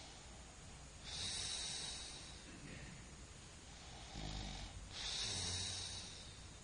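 A person snoring in sleep: two long hissing breaths, about a second in and again about five seconds in, with a low snore just before the second.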